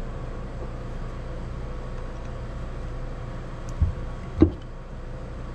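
Flat-blade screwdriver prying the cover of a Kawasaki Prairie 300 rear differential housing loose: two dull knocks about half a second apart, a little under four seconds in, over a steady low hum.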